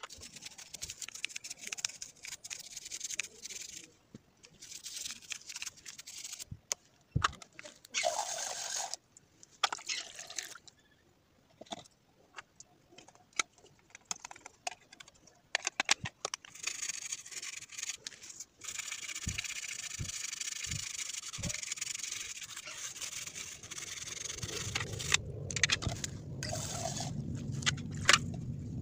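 Wet scrubbing and scraping on the plastic parts of a multimeter case with a toothbrush and a screwdriver tip. It comes in bouts from about a second to several seconds long, with small clicks and taps of plastic between. A low rumble comes in near the end.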